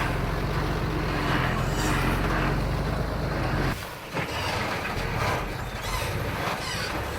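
Heavy diesel engine of earthmoving machinery running steadily; its deep note cuts off abruptly a little under four seconds in, and a quieter machine sound follows.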